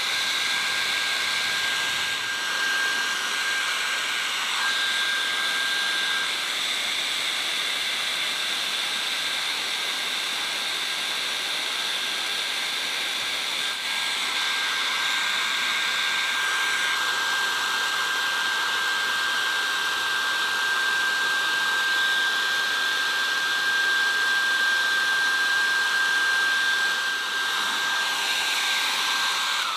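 Handheld hair dryer running steadily: a rush of air with a steady high fan whine. It cuts off at the very end.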